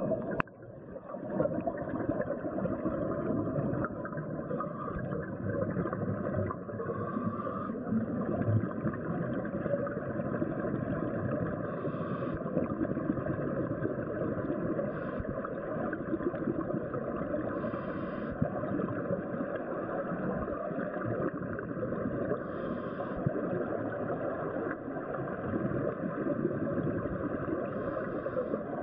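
Underwater sound on a scuba dive, picked up through the camera housing: a steady, dense crackling hiss, with a short brighter burst every three to five seconds.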